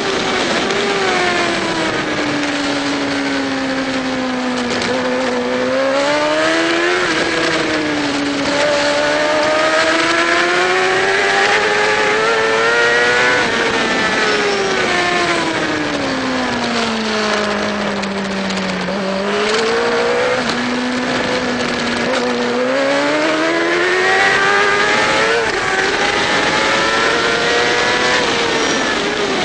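Racing motorcycle engine heard from onboard at race speed, its revs climbing under acceleration and falling as it slows for corners, several times over, with wind rushing on the microphone.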